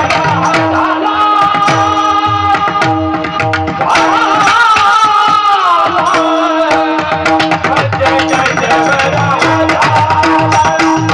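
Kirtan devotional music: a hand drum plays bass strokes that fall in pitch, under a steady sustained drone note and quick sharp percussion strikes. A male voice sings a long ornamented phrase about four seconds in.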